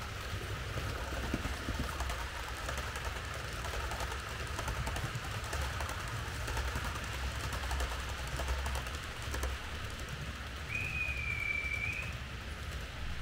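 Märklin H0 model train running on the layout's track: a steady rattling hiss over a low motor hum. About eleven seconds in, a single high tone sounds for just over a second.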